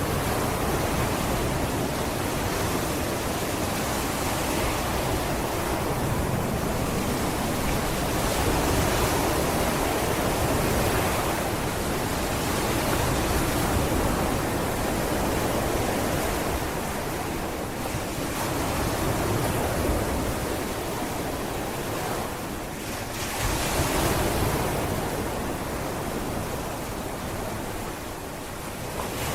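Sea waves washing onto a beach: a continuous surf noise that swells and ebbs every few seconds as each wave breaks and draws back.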